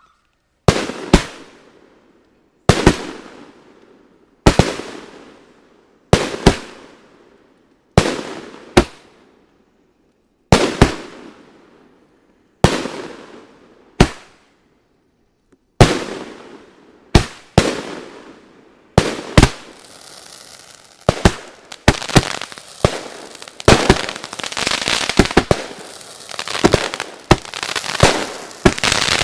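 Fata Morgana fireworks battery firing shot after shot: sharp bangs about every one and a half to two seconds, each trailing off in an echo. From about twenty seconds in, the shots give way to dense crackling with rapid pops.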